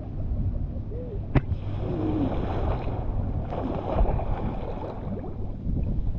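Water lapping around a camera at the surface, then a bike and rider plunging into the water with a big splash about four seconds in, followed by churning water.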